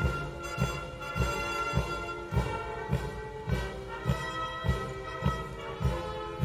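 Brass band playing a march: held brass chords over a steady bass-drum beat a little under two beats a second.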